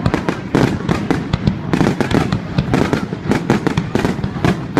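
Fireworks going off in a dense, continuous barrage of overlapping sharp cracks and bangs, several a second.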